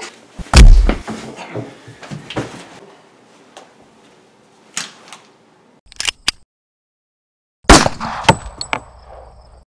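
Impacts from a staged fight: a heavy thud about half a second in, followed by scuffling knocks that fade out. A few sharp clicks come around six seconds, and near the end a loud crash follows with a brief high ringing clink.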